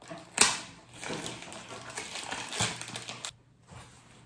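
Packaging being handled by hand: a sharp tap, then about two seconds of rustling and crinkling with another click, then quiet.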